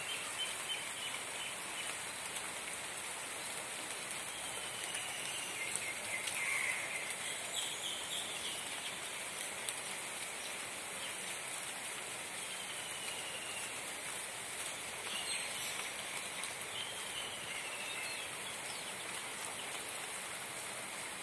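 Steady rain falling on tree and shrub leaves, a constant even patter. A bird gives short falling calls now and then over the rain.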